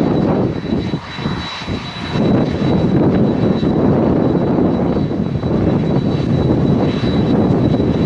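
Japan Airlines Boeing 767 jet engines running at taxi power close by: a steady, loud rumble with a thin high whine on top. The rumble dips briefly about a second in, then returns.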